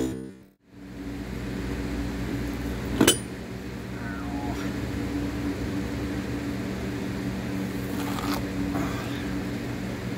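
A steady low mechanical hum of some running machine, with a single sharp click about three seconds in.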